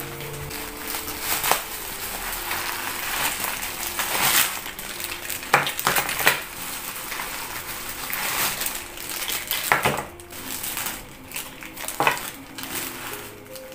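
Bubble wrap and plastic zip-lock bags crinkling as they are handled, with small metal cosmetic tins clinking against each other inside a bag in a few sharp clicks.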